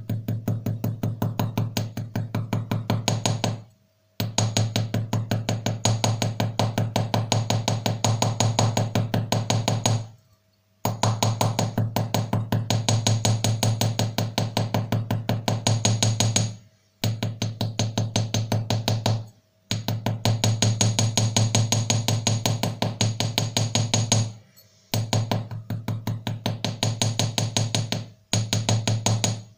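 Rapid light tapping of a small watchmaker's hammer on a silver ring over a tiny anvil, about ten taps a second, in runs of several seconds with short pauses between them.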